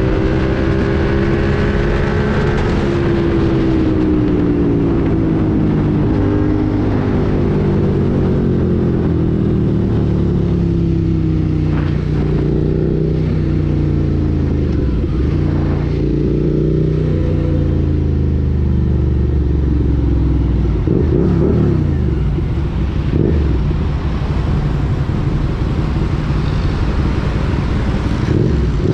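Suzuki SV650's 645 cc 90-degree V-twin running through an SC-Project slip-on exhaust as the bike rides at speed. The engine pitch falls over the first few seconds, then rises and falls several times as the bike slows through the gears toward a near stop.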